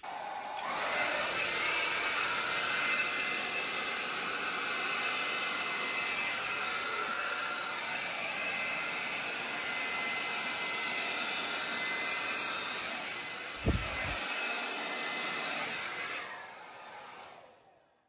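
Revlon hair dryer with a wide concentrator nozzle running on high, a steady rush of air that starts at once and winds down over the last couple of seconds as it is switched off. A brief low thump near the end.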